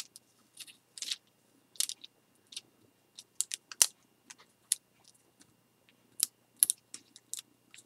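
Thin Mylar streamer film crinkling as fingers handle and fold it, a string of short, irregular crackles.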